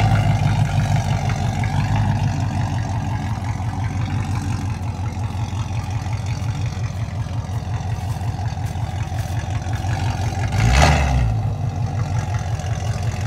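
Land Rover Discovery 2's engine running at low revs as the truck crawls over rocks, with a brief louder surge about eleven seconds in.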